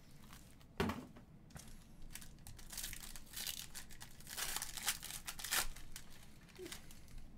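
Foil wrapper of an Upper Deck Ultimate Collection hockey card pack being torn open and crinkled by hand, in bursts of crackling. A sharp knock about a second in is the loudest moment.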